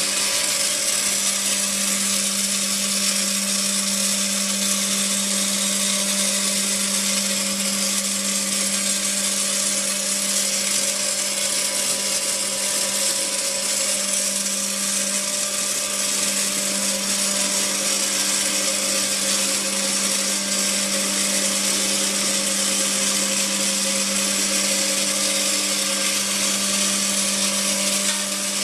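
Machinery running steadily: an unchanging motor hum over a strong hiss, with no breaks or changes.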